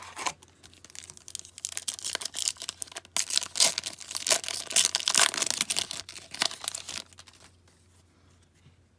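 A trading card pack's wrapper being torn open and crinkled by hand, with the cards inside being handled. The crackling runs for about seven seconds, loudest in the middle, and stops near the end.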